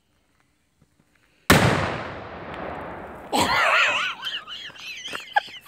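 A FKU27 BoomRat firecracker exploding inside the empty petrol tank of an old Kubota lawn mower: one very loud bang about a second and a half in, ringing out and fading over about two seconds. Men yell right after the blast.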